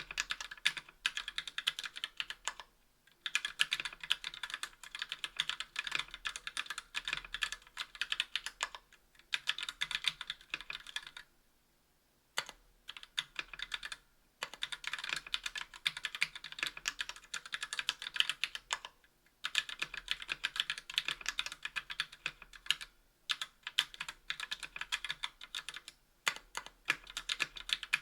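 Fast typing on a KBDfans Tofu 60% aluminum-plate mechanical keyboard with TTC Gold V2 Red linear switches and GMK keycaps: dense runs of crisp keystrokes bottoming out, broken by brief pauses between bursts.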